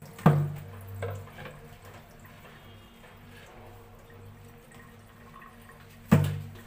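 Water dripping and trickling off a soaked chicken into a stainless steel sink. Two sharp thumps stand out, one just after the start and one near the end, with a softer one about a second in.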